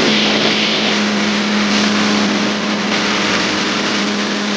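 Motorboat running at speed on its Yamaha 200 outboard: a steady engine drone under a loud, continuous rush of wind and water.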